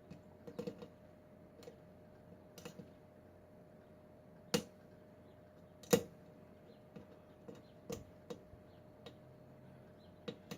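Small, irregular metallic clicks and ticks of a lock pick and tension wrench working the pins inside a Kwikset pin-tumbler lock, with two louder clicks near the middle.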